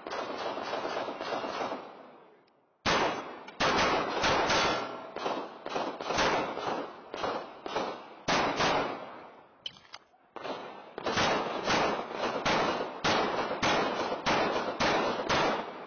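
Rapid pistol fire from a red-dot-sighted competition handgun: quick strings of shots start about three seconds in, pause briefly about ten seconds in, then continue almost to the end.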